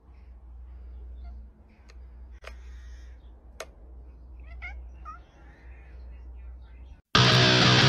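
A cat making a few short, faint meows over a low steady hum, with two sharp clicks before them. Loud strummed guitar music cuts in near the end.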